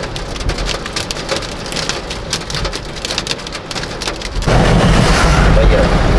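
Heavy rain pelting a car's windshield and roof, heard from inside the car, with many sharp individual drop hits. About four and a half seconds in it turns suddenly into a louder, steady rush with a deep low rumble.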